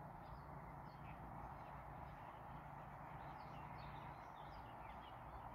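Faint, frequent short chirps and song phrases of distant small birds over a steady hiss and low rumble.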